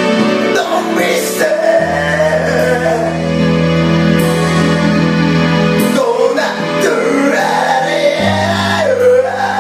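A man singing into a karaoke microphone over an instrumental backing track with held bass notes.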